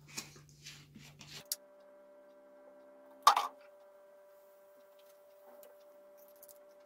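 Metal teaspoons clinking against each other while vinegar is poured onto a spoonful of baking soda to slake it. There are a few faint taps in the first second and a half, then one sharp clink a little after three seconds in, over a steady hum.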